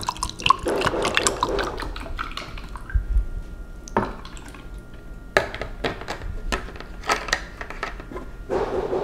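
Iced tea poured from a glass jug over ice cubes into a glass, splashing and trickling for the first two seconds. Then come several sharp separate clicks and knocks, and another pour-like splash near the end.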